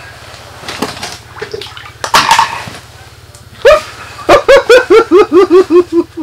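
A man laughing hard: a run of about ten loud, quick 'ha' pulses, each dropping in pitch, starting a little past halfway. Before it, soft rustling and a short breathy burst.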